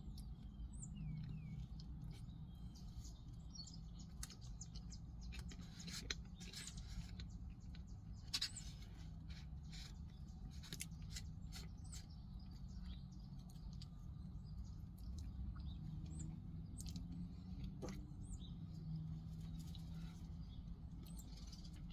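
Quiet eating sounds: irregular soft clicks and scrapes of a plastic spoon in a cardboard pie box, with chewing, over a low steady hum inside a car. A couple of faint bird chirps come from outside.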